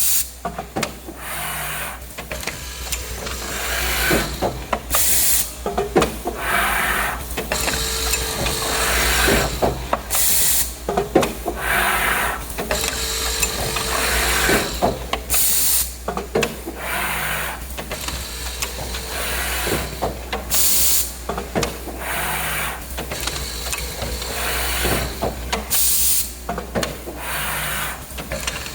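Woodworking drilling machine running through repeated cycles: a steady low hum and mechanical rattling, with a short loud hiss about every five seconds.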